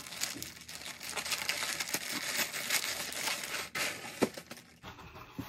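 Plastic packaging being torn open and crinkled as clothing is pulled out. The rustling goes on for about four and a half seconds, with a couple of sharp clicks near its end.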